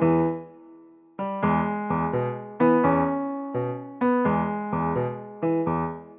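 Background music: piano chords struck one after another in a light rhythm, with a short pause just before a second in and the last chord dying away near the end.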